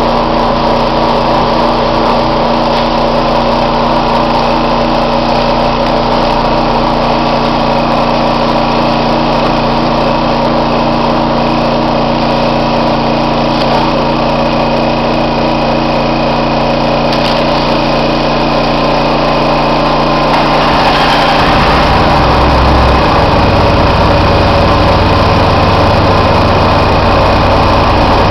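Sawdust-handling machinery running with a loud, steady drone of several held tones as the chute feeds sawdust into a bulk bag. About three quarters of the way through, its low hum shifts to a different steady tone and grows a little louder.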